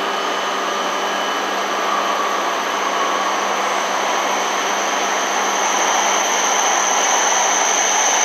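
E6 series Komachi shinkansen, coupled to an H5 series Hayabusa set, pulling slowly into a station platform: a steady rush of rolling and running noise with a high steady whine, growing a little louder as the train draws nearer.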